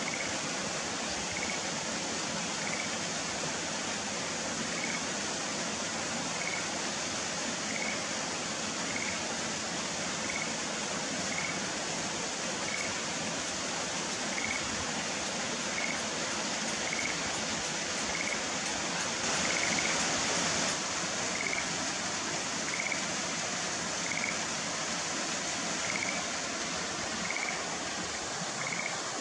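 Schlegel's green tree frog calling: a short high note repeated about once every second and a bit, over a steady rushing noise that swells briefly about two-thirds of the way through.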